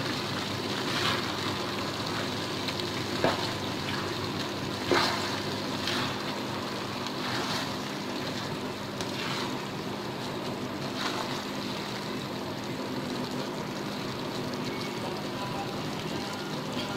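Spatula stirring rice and lentils in a non-stick pan on the heat: a handful of short scraping strokes against the pan over a steady low sizzle from the rice still cooking.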